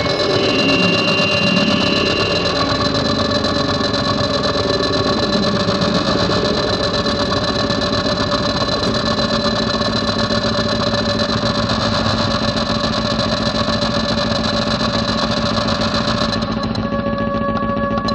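Experimental drone-noise music: a loud, dense, steady drone of many held tones over a grainy low rumble. About sixteen seconds in, the top end drops away and the sound turns duller.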